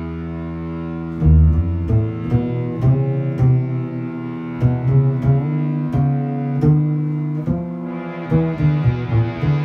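Improvised instrumental music from a bass and guitar duo: a held low note, then from about a second in a moving bass line of separate notes. A brighter layer joins near the end.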